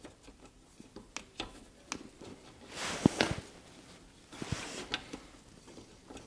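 Plastic dipstick cap of a Briggs & Stratton 450 series mower engine being twisted into its oil filler tube, struggling to catch the thread: light clicks and scrapes, with two longer rustles about three and five seconds in.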